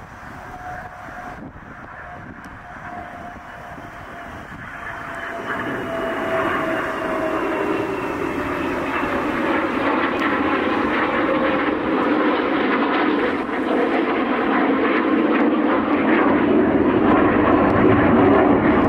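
Jet aircraft flying over, the Boeing KC-46 tanker, its turbofan engines growing steadily louder, loudest near the end. A thin engine whine slowly falls in pitch as it passes.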